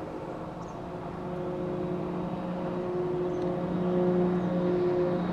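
A passing motorboat's engine running at a steady pitch, growing gradually louder as the boat comes closer.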